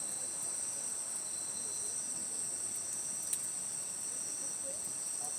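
Insects, crickets or similar, chirring as a steady, unbroken high-pitched chorus. One sharp click sounds about three seconds in.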